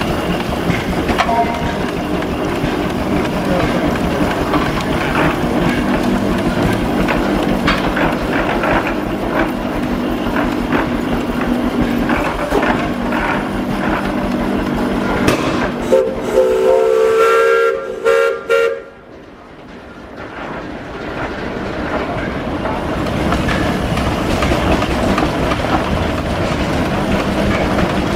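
1906 Frick steam traction engine running as it drives along, with a blast of its steam whistle lasting about two seconds a little past halfway through. Just after the whistle the sound turns much quieter for a few seconds, then builds back up.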